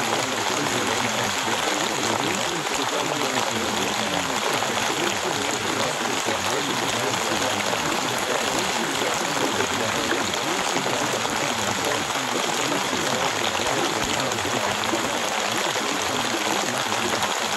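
Recorded rain falling steadily: an even, unbroken hiss of water noise.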